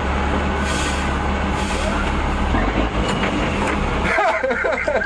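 M35 army truck's engine running steadily with a low drone, with two short hissing puffs about a second in and again near two seconds.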